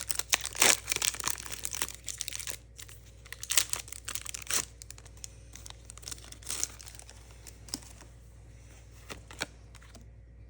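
Foil wrapper of a Pokémon booster pack crinkling and tearing as it is opened, with dense rustling in the first few seconds that thins to a few scattered crackles and clicks.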